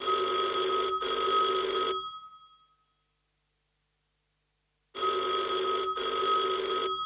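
Telephone bell ringing twice, about five seconds apart. Each ring lasts about two seconds with a brief break in the middle, and the bell rings on for a moment after it stops.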